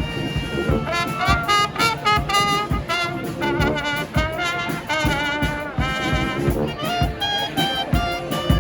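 Street brass band playing: trumpets, trombones and saxophones carry the tune over a steady percussion beat.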